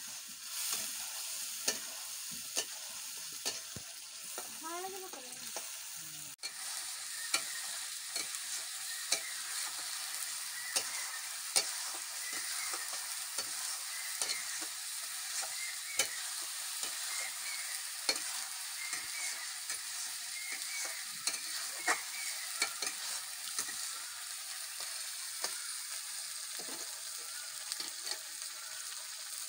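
Curry masala frying and sizzling in an iron kadai, with a metal spatula scraping and clicking against the pan as it is stirred: a steady hiss broken by many short sharp knocks.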